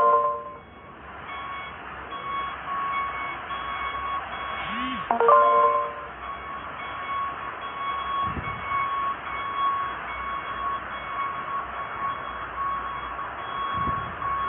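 Reversing alarm on a road-works vehicle beeping over and over at a single pitch, over steady machine noise. A louder, chime-like multi-tone call sounds near the start and again about five seconds in.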